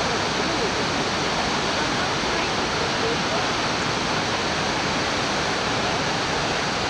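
Niagara Falls: a constant, even rush of heavy water plunging into the churning basin below, steady in level throughout.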